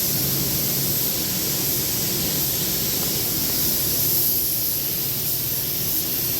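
Steady, even hiss of rushing air in a paint spray booth, with no break or change.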